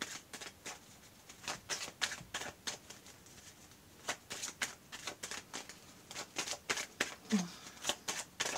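A deck of cards shuffled by hand: quick card clicks and slaps in irregular runs, with a couple of short pauses.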